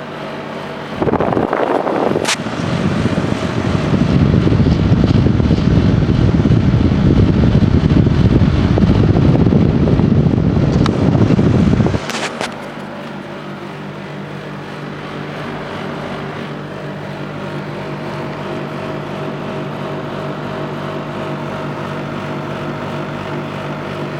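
Daikin split air conditioner running with a steady hum. From about a second in, a loud low rushing rumble like air buffeting the microphone covers it, then cuts off sharply about halfway through, leaving the steady hum, with a sharp click near the start of the rush.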